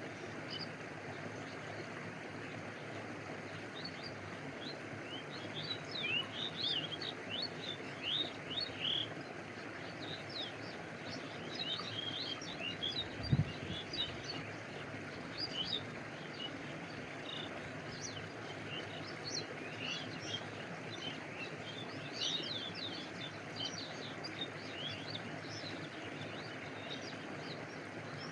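Stream water flowing and lapping steadily, with many short high chirps of birds over it. A single brief low thump about halfway through.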